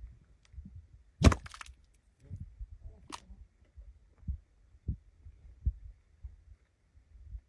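Mud volcano vent bubbling: thick mud bursting in low, irregular plops, with a sharp louder splat about a second in and another about three seconds in.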